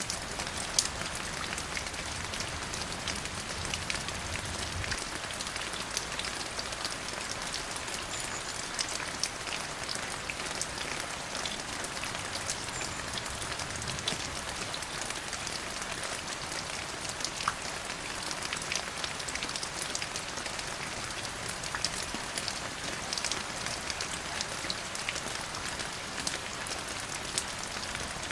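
Steady rain falling on a surface, an even hiss with many distinct drops ticking through it.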